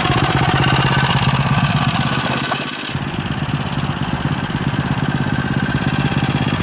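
Homemade dirt bike's single-cylinder Tillotson 225 racing engine running as the bike is ridden, an even firing pulse throughout. About three seconds in the sound dips briefly and turns duller.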